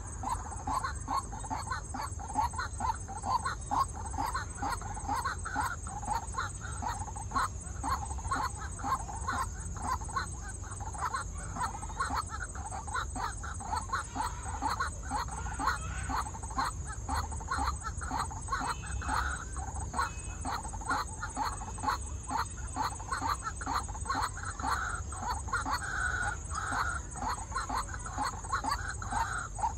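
White-breasted waterhens calling: a long unbroken series of short repeated call notes at about two a second, with a few louder, higher notes in the middle and later on.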